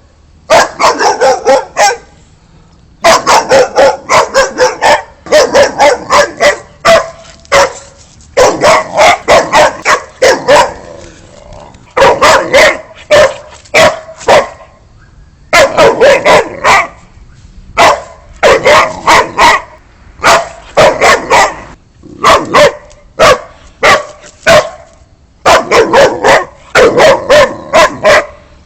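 Boxer dog barking loudly in rapid volleys of several barks, with brief pauses between volleys.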